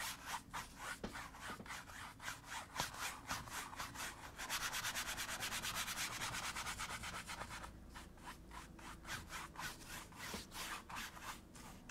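Paintbrush scrubbing oil paint into canvas in repeated back-and-forth blending strokes, quickest and most even in a run through the middle.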